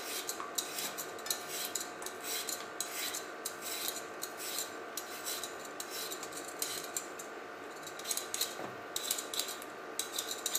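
Metal Y-shaped vegetable peeler scraping the skin off a raw potato in a quick, uneven run of short strokes.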